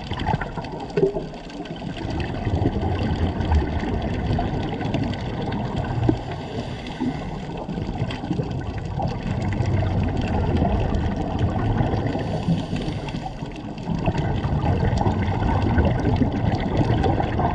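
Underwater noise through a camera housing: a low rumbling wash with the bubbling of scuba divers' exhaled air, swelling and dipping in loudness.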